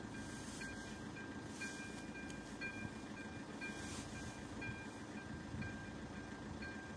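AŽD 97 level-crossing warning bell ringing, a short electronic ding repeating about twice a second, the signal that the crossing is closed for an approaching train. A steady low rumbling noise lies beneath it.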